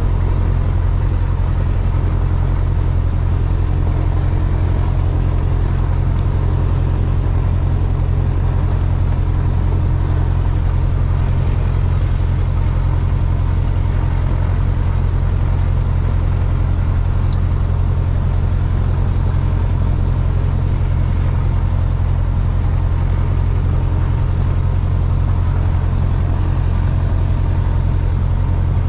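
Single-engine light aircraft's piston engine idling with the propeller turning, a steady low drone heard from inside the cockpit.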